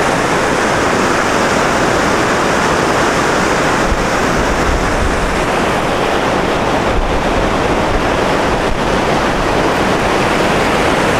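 Whitewater of the St. Francis River rushing over rocky rapids, a loud, steady noise of running water from a river running high.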